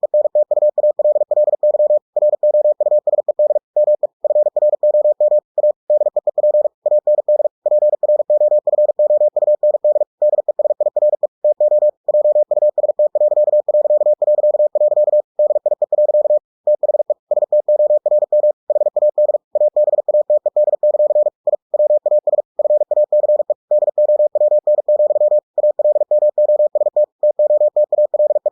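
Computer-generated Morse code (CW) at 45 words per minute: a single steady tone keyed on and off in rapid dots and dashes, with brief pauses between words.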